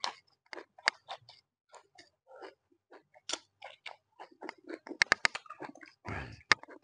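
Close-miked eating sounds: chewing with wet mouth clicks and smacks as she eats a bitten green chili with rice and noodles, mixed with the hand. A denser, louder stretch of noise comes about six seconds in.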